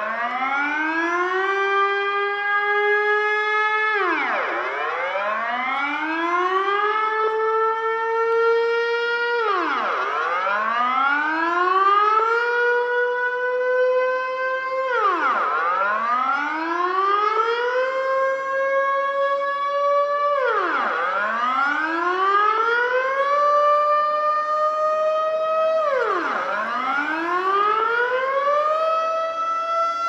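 Dutch rooftop civil-defence siren (air-raid warning siren) sounding its alarm wail. The pitch drops sharply, then climbs slowly back and levels off, about every five and a half seconds.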